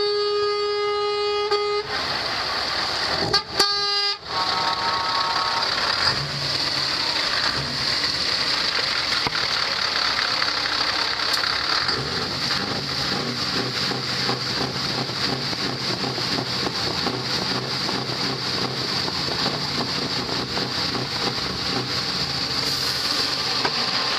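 Truck air horn blowing a long blast that ends about two seconds in, a short second blast a moment later and a fainter horn after it; then the steady running of diesel trucks rolling slowly past close by, the engine drone growing stronger about halfway through.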